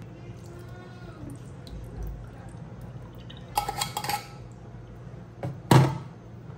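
Metal clinks and scrapes of a tuna can and its lid pressing drained tuna in a stainless-steel mesh strainer, clustered a little past halfway. Near the end comes one sharp metal knock of the spoon against the strainer, the loudest sound.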